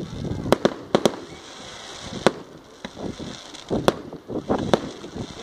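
Fireworks exploding in the air: a string of about eight sharp bangs at irregular intervals, several in quick pairs during the first second.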